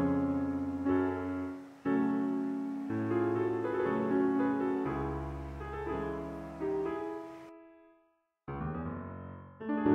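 Piano music: a slow run of single and layered notes, fading to a short silence about eight seconds in before it starts again.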